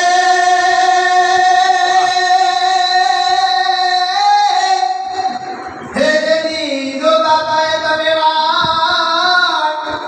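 Singing into a microphone: one voice holds a long steady note for about four seconds, rises slightly and breaks off, then starts a second long phrase about six seconds in.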